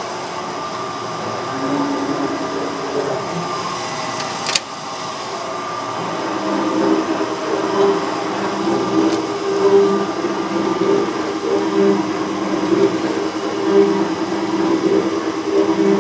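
Cincinnati metal shaper running, its ram stroking back and forth as it cuts a cast iron bar. A sharp click comes about four and a half seconds in; from about six seconds on the machine is louder, with a regular beat roughly once a second, as the stroke speed is raised.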